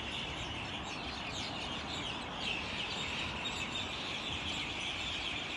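A dense, continuous chorus of many birds chirping and chattering, with short falling notes overlapping one another.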